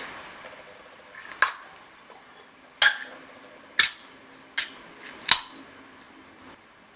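Five sharp clicks and clinks, about a second apart, from handling a soup can and dishes.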